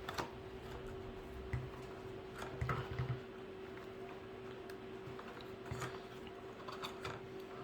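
Faint, scattered clicks and knocks of plastic parts being handled as a chicken watering cup is fitted into a plastic bucket, with a small cluster of knocks about three seconds in, over a steady faint hum.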